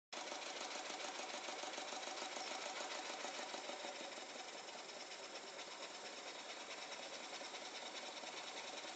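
A small engine running steadily with a fast, even rattle, a little louder in the first few seconds.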